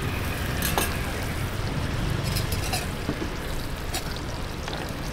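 Roti frying on a flat oiled steel griddle with a light sizzle, and a metal scraper clicking and scraping against the griddle a few times as the roti is cut and lifted off.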